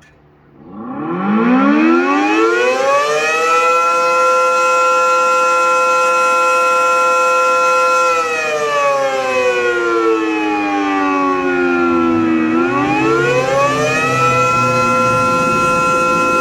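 Air raid siren starting up: several tones together climb in pitch over about three seconds to a steady wail. About eight seconds in the pitch sags slowly for four seconds, then climbs back to full pitch.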